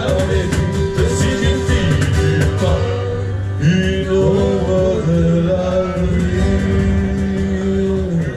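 Live folk band playing an up-tempo Irish song: strummed acoustic guitar, electric guitar, percussion and cymbal, with singing. In the second half a long note is held until the music drops away at the very end.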